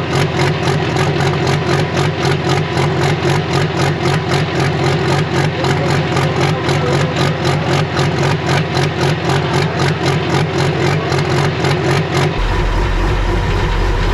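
Pro Stock pulling tractor's diesel engine idling with a lumpy, evenly pulsing beat. About twelve seconds in the sound cuts to a deeper, smoother rumble of the same tractor.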